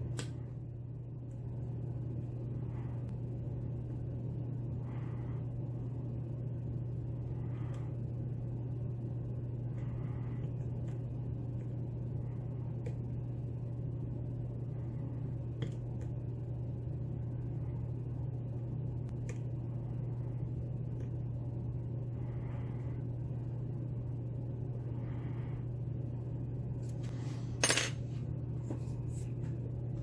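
Small metal clicks of a lock pick and tension tool working the pins of a lock cylinder, over a steady low hum. A louder metallic clatter comes near the end as a pick is taken from a tray of lock picks.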